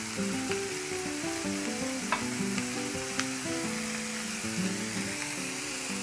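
Shrimp and sliced onion sizzling steadily as they fry in an aluminium pan, with a few light clicks about two to three seconds in.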